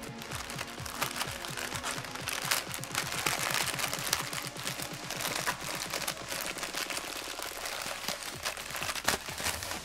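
Plastic mailing bag crinkling and rustling with sharp clicks as it is torn open by hand and a foam-wrapped item is pulled out, over a steady low beat.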